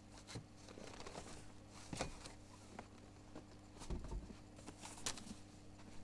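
Faint handling noises: scattered clicks, knocks and rustles, with a low thump about four seconds in and a sharp click about a second later, over a steady low hum.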